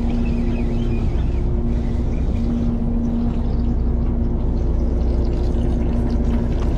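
Fishing boat's engine running steadily: a low rumble with a constant hum.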